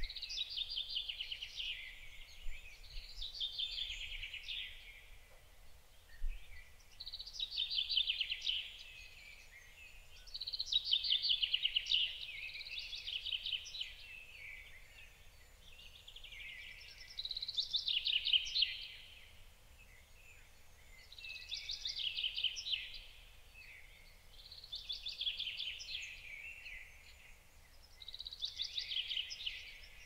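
Chaffinch singing, again and again: a short run of quick notes falling in pitch, one phrase every few seconds.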